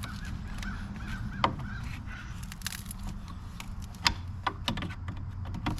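Plastic clips and brittle trim being worked loose on a car's front end: scattered sharp clicks and short creaks.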